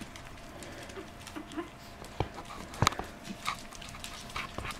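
Yorkshire terriers and their puppies moving about on a hardwood floor: a few scattered sharp clicks of claws on the wood, the loudest about three seconds in.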